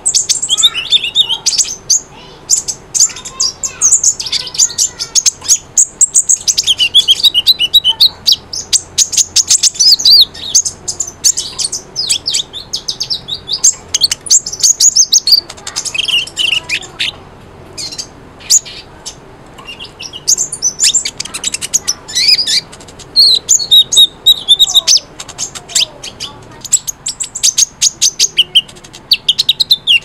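Small songbirds singing: rapid, high-pitched chirps and twittering trills, dense and overlapping, with short lulls around the middle and near the end.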